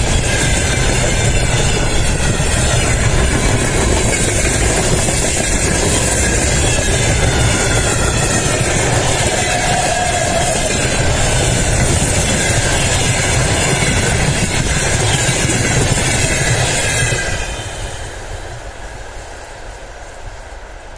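Freight train wagons rolling past at close range. The end of the train passes about 17 seconds in, and the sound drops away to a fading rumble as the train recedes.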